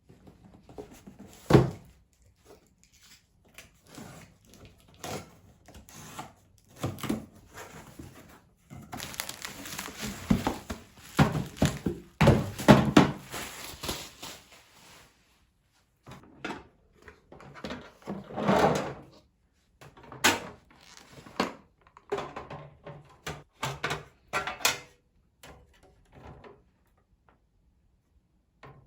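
Objects being handled in a small room: a series of knocks, clicks and thunks, the sharpest about a second and a half in, with a longer spell of scraping and rustling in the middle.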